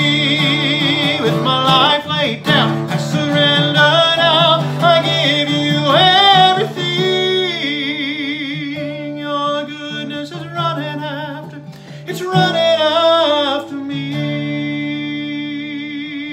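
A man singing with vibrato over his own strummed acoustic guitar chords.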